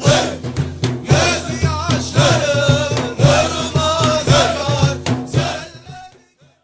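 Naqshbandi Sufi zikr: a solo voice chants in long, ornamented, wavering lines over a low drone and steady drum beats, with a choir or group voices behind it. It fades out about six seconds in.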